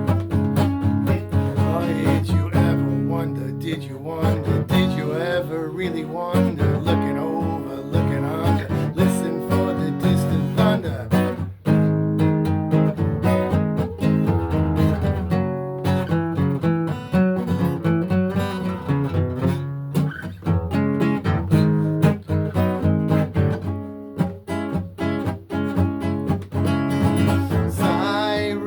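Music played on acoustic guitar.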